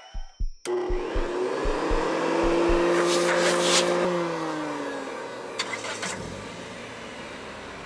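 A motor vehicle going by: its engine note holds steady, then drops in pitch about four seconds in as it passes and fades. Regular low thuds sound under it during the first few seconds.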